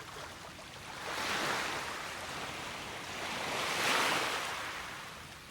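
Rushing water of a rocky mountain stream, a steady noise that swells about a second in and again near four seconds.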